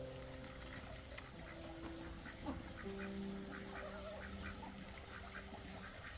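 Ducks quacking repeatedly in short calls, over soft background music with long held notes.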